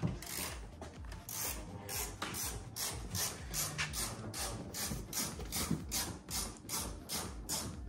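Repeated mechanical ratcheting strokes, evenly spaced at about three a second.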